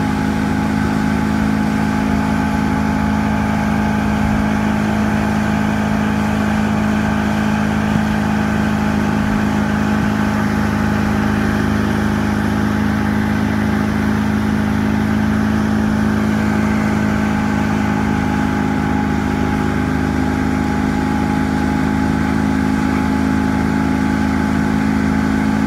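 115 hp outboard motor running at a steady towing speed, a constant even drone that does not change pitch, with the hiss of wake water and wind over it.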